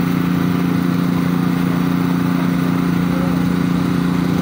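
Small petrol engine of a portable hydraulic power pack running at a steady speed, driving the pump for the jacks used to rerail a derailed wagon.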